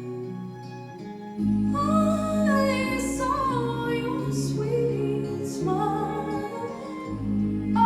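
Music with a female singing voice over instrumental accompaniment; the voice and fuller band come in about a second and a half in after a quieter instrumental passage.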